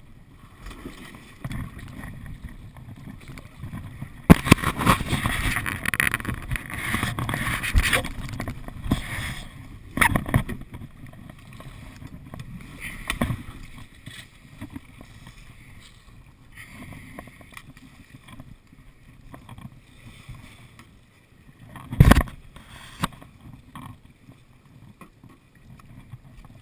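Kayak hull scraping and knocking on wet beach stones as it comes ashore, with water sloshing around it. A long, loud stretch of grinding and clattering comes a few seconds in. Sharp knocks follow, the loudest about two-thirds of the way through.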